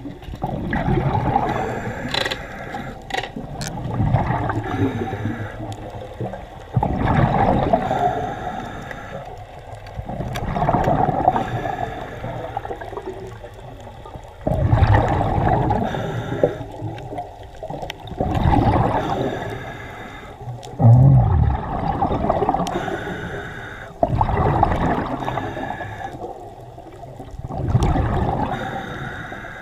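Muffled water sloshing and gurgling around an underwater camera. It swells and fades in surges every three to four seconds.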